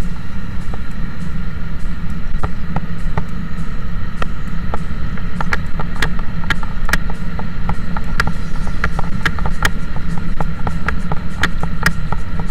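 Motorcycle riding along a road, heard through a camera mounted on the bike: a loud, steady low rumble with a faint hum. Sharp clicks are scattered through it, coming more often from about five seconds in.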